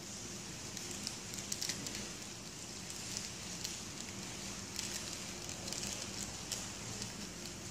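Faint, irregular crackling and rustling clicks, like something being handled or unwrapped, over a steady background hiss with a low hum.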